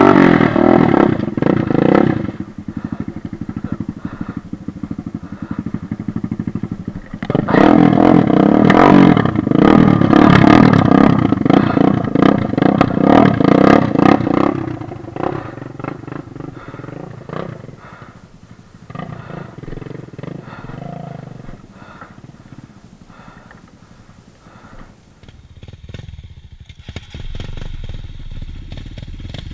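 Kawasaki KLX150S single-cylinder four-stroke dirt bike engine revving hard while the rear wheel spins in loose dirt, the bike being pushed and throttled up a slippery trail. It revs loudly for about two seconds, drops to a lower run, then revs hard again for about seven seconds before settling back.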